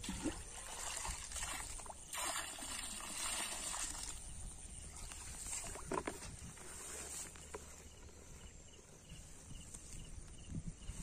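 Water splashing and sloshing in a plastic bucket as it is dipped into shallow floodwater and set down, with knocks from handling the bucket and rustling grass.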